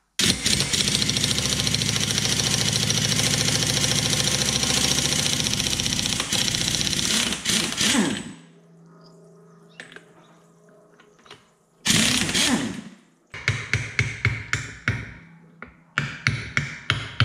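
Pneumatic impact wrench hammering continuously for about eight seconds on the pinion yoke nut of a differential, to loosen it. After a lull it gives a shorter burst, followed by a run of sharp knocks about three a second.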